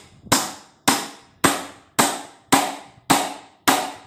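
A hammer striking a new metal pulsator gear down onto the hub of an LG washing machine pulsator to fit the replacement. Seven evenly spaced blows come about two a second, each ringing briefly.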